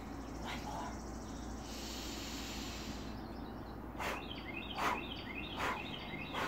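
A woman breathing: a long inhale through the nose in the middle, then four short, sharp puffs of breath out through pursed lips, about a second apart, near the end. Birds chirp in the background.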